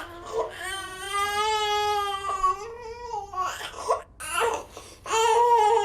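Infant crying: a long wail of about three seconds, a couple of short sobbing cries, then another long wail starting near the end.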